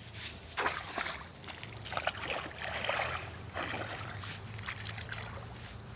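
Shallow muddy water splashing and sloshing as a person wades and moves through it on foot, in an irregular run of splashes, heaviest about two to three seconds in.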